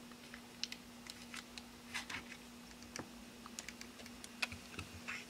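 Faint, irregular small clicks and taps of plastic and metal phone parts being handled: a Samsung Galaxy S5 partly taken apart, its screen being worked loose, with a plastic pry tool.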